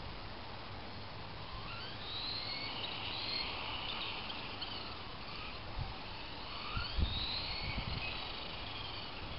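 Brushed electric motor of a Tamiya Blackfoot RC monster truck at a distance, whining faintly and rising in pitch several times as the truck speeds up along the road, over steady outdoor background noise. A few low thumps come about two-thirds of the way in.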